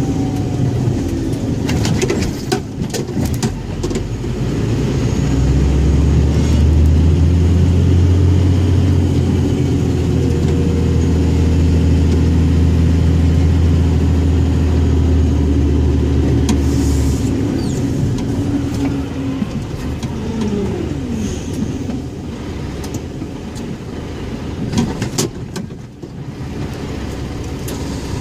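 Scania 114G 340 truck's diesel engine running, with a heavy steady drone from about five seconds in that eases off at about seventeen seconds. A few sharp clicks are heard near the start and near the end.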